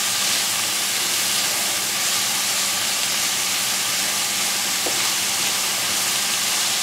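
Sliced onions, red bell peppers and fennel sizzling steadily in a stainless steel skillet as they are stirred, cooking down in oil.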